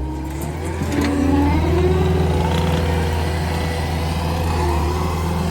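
A vehicle engine picks up speed about a second in, rising in pitch, then runs steadily.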